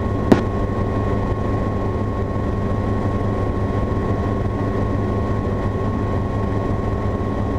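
Light helicopter's engine and rotors droning steadily in flight, heard inside the cabin, with a thin steady high whine over the drone. A single sharp click comes about a third of a second in.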